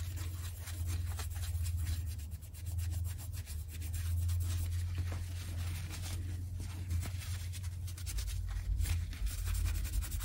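Paper towel wet with rubbing alcohol rubbed back and forth over a small metal rearview-mirror mounting button, scrubbing off sticky old glue residue. A steady low hum runs underneath.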